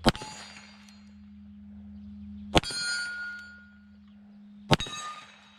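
Three shots from a Ruger Blackhawk Bisley .45 Colt single-action revolver, about two seconds apart, each followed by a short metallic ringing.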